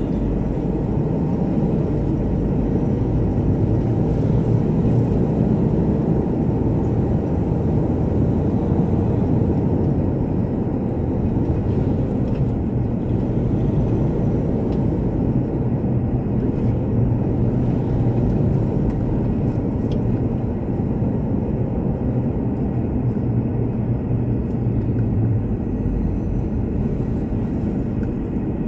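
Steady engine and road noise inside the cabin of a moving Mitsubishi Pajero, a low rumble with no sharp events.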